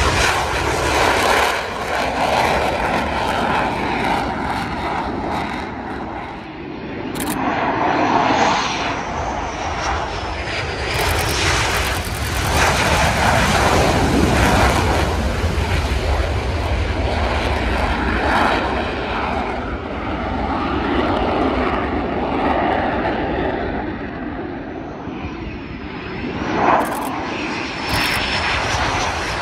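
Jet noise from the twin turbofan engines of an EA-18G Growler flying a low, gear-down landing-practice pass. The loud, continuous roar swells and eases several times.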